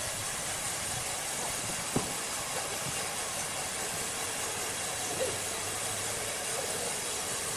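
Steady hissing noise of running sawmill machinery, with a single sharp knock about two seconds in.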